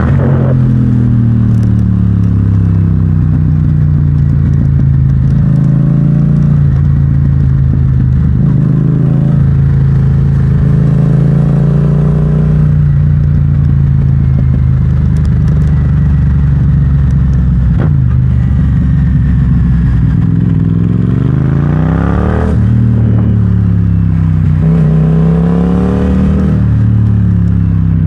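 Yamaha MT-07's parallel-twin engine through an Akrapovic exhaust, ridden on the road with the revs rising and falling several times as it accelerates and eases off.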